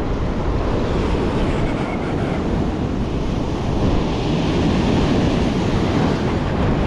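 Ocean surf breaking and washing over a rocky shore, with wind buffeting the microphone as a steady low rumble.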